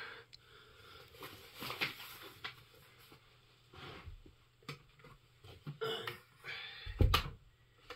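Plastic parts of a Shark upright vacuum cleaner being handled and fitted together during assembly: scattered clicks, knocks and scuffs, with one heavier thump about seven seconds in.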